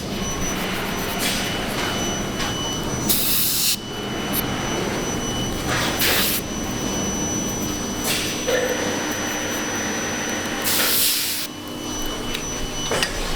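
Steady machinery hum in a foundry workshop, broken four times by short bursts of hissing, each lasting under a second.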